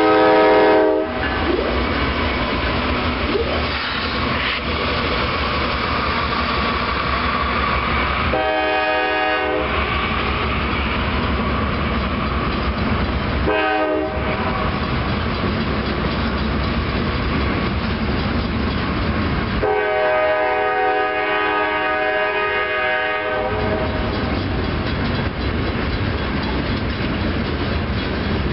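Freight train's loaded open hopper cars rolling past with steady wheel-on-rail noise and clickety-clack. The locomotive's air horn sounds a grade-crossing signal. One blast is just ending at the start. A long blast comes about eight seconds in, a short one about thirteen seconds in, and a long one of nearly four seconds about twenty seconds in.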